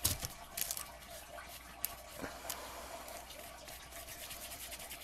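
Fingertip rubbing gesso into a paper-covered chipboard tag: quick, rhythmic rubbing strokes on the paper, with a few sharp taps and clicks from handling in the first couple of seconds.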